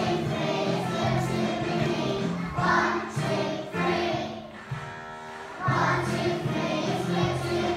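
A group of young children singing a song together, with a piano accompanying them; the singing drops back briefly a little past the middle before the next phrase comes in.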